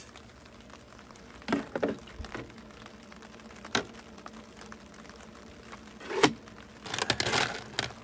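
Scattered light clicks and knocks of hollow ice cubes being handled in a plastic container and in the ice maker's wet tray, with a small cluster of them near the end, over a faint steady hum.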